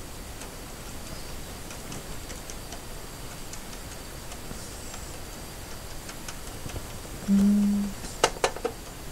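Wooden spatula stirring oats and milk in an aluminium Trangia frying pan, with faint scattered ticks of the spatula against the pan. Near the end comes a short low hum, then a few sharp taps of the spatula on the pan.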